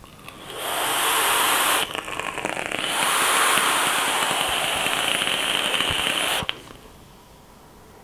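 A 0.17 ohm coil in a dripping atomizer on a mechanical mod sizzles and crackles as it is fired, with air drawn through it. It runs in two stretches: about a second at first, then a louder pull of about three and a half seconds that cuts off suddenly with a click a little past six seconds in.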